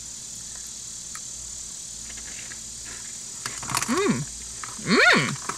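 Steady high-pitched trill of crickets, then about four seconds in a woman hums "mmm" twice, each with a rising-then-falling pitch, as she tastes a crunchy snack.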